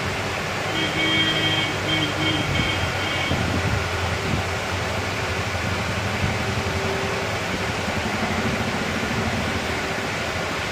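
Steady background hum and hiss, with a brief high broken tone from about one to three seconds in.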